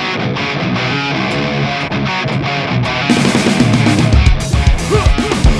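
Rock music with guitar. About three seconds in it gets fuller, and strong low beats start about a second later.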